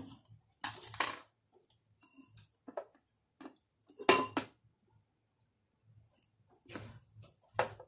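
A run of separate short clicks, snips and clinks, the loudest about four seconds in with a brief ring: scissors cutting a small piece of rhinestone mesh trim and the decorated bottle being handled.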